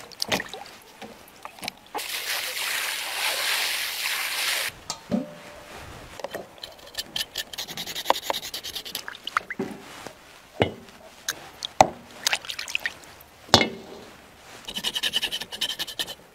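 Beef hooves being scraped with a knife in a plastic basin of water: water sloshing and splashing, with scraping and sharp clicks of the blade against the hoof.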